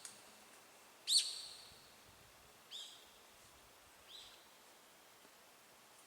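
A songbird giving three short calls about a second and a half apart. Each is a quick upward sweep into a brief held whistle, and each is fainter than the last.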